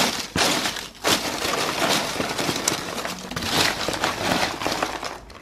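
A hand rummaging through crumpled kraft-paper packing fill in a cardboard box: continuous crackling and rustling of paper, with a short pause about a second in.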